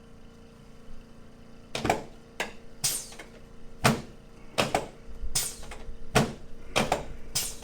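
Chiropractic adjustment of the upper back, chest and rib joints: a quick series of about a dozen sharp knocks and pops from the thrusts and joint releases, starting nearly two seconds in.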